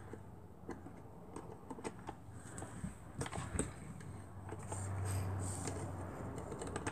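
Faint scattered clicks and light rattling of a small sewing machine being handled, as fingers work at the shuttle under the needle to try to get it out, over a faint low hum.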